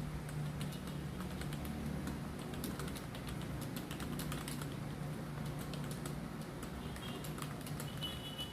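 Typing on a new USB computer keyboard being tested: a run of irregular clicking keystrokes.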